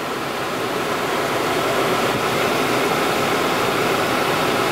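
Car's climate-control blower running: a steady rush of air that grows louder over the first two seconds, then holds level.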